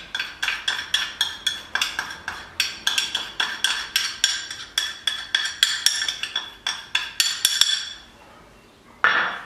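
A metal spoon tapping rapidly against the rim of a small glass cup, knocking chocolate powder out into a saucepan. It makes about three ringing clinks a second and stops about eight seconds in, followed by a short scuff near the end.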